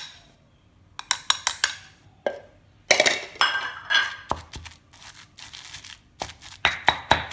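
Stone pestle pounding chili paste in a granite mortar: bursts of quick, sharp strikes, with a stretch of scraping in the mortar about three seconds in and more irregular strikes after it.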